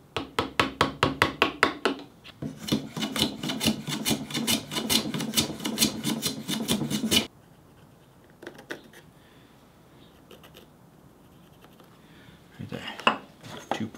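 Hand file rasping wood in quick back-and-forth strokes, about five or six a second: a short bout, a brief pause, then a longer bout that stops about halfway through. A few light scrapes and taps follow near the end.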